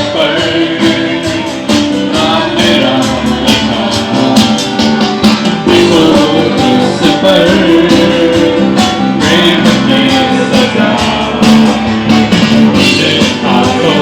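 Music: a Christian worship song with guitar and a steady drum beat, the lead-in or interlude of a Hindi song about Jesus.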